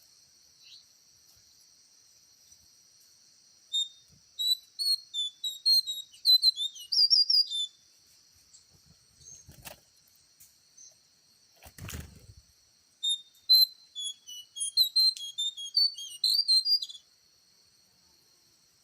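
A songbird sings two quick phrases of high, rapid chirping and warbling notes, one about four seconds in and another about thirteen seconds in. A steady high insect whine runs underneath, and two brief knocks come between the phrases, the second a duller thud.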